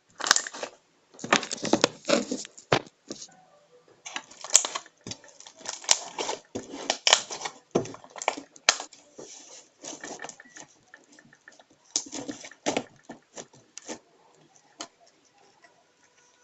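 Homemade glue slime being squeezed and pressed by hand, with irregular wet squelches and crackling pops in quick bursts that thin out near the end.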